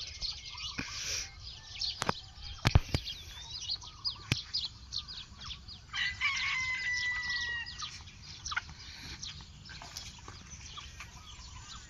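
A rooster crowing once, a call held for almost two seconds about six seconds in, among many short bird chirps, with a few sharp knocks in the first half.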